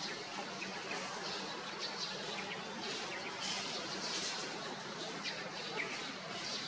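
Outdoor ambience: small birds chirping now and then over a steady background hiss.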